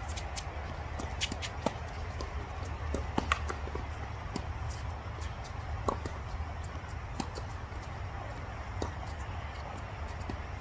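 Tennis play on a court: irregular sharp knocks and taps of ball and feet, a few louder than the rest, over a steady low rumble.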